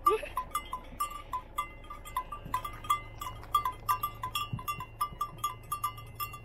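Small bell on a grazing sheep clinking irregularly, about three to five strikes a second, each with a brief ringing tone.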